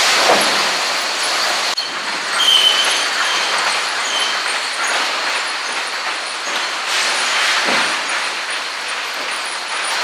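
Sawmill lumber-sorting machinery running: conveyors, rollers and chains carrying boards in a steady, loud industrial din, with a brief high squeal about two and a half seconds in.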